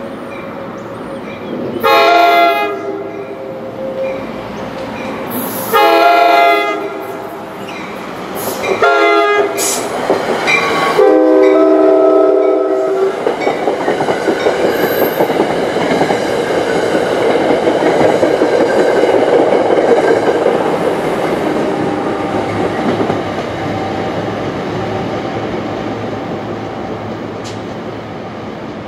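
NJ Transit train sounding its horn in the long-long-short-long grade-crossing pattern: two long blasts, a short one, then a final longer blast. The train then passes with wheels clattering over the rails, building to a peak and slowly fading.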